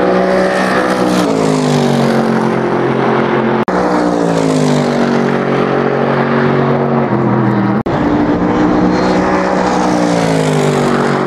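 Mercedes-Benz SLS AMG GT3's naturally aspirated 6.2-litre V8 running hard as the race car goes by, its engine note falling in pitch as it passes. The sound breaks off briefly twice, joining three short pass-bys.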